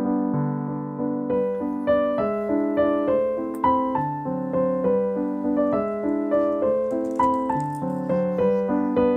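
Background piano music, with notes struck in an even rhythm about twice a second over low sustained chords.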